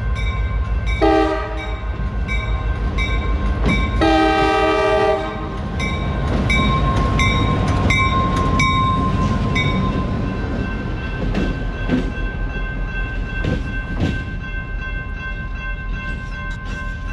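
EMD GP38-2 diesel locomotive passing close with its engine rumbling, sounding its horn twice, the second blast longer, while a bell rings about twice a second. Later a steady tone hangs over the engine noise, with a few sharp knocks.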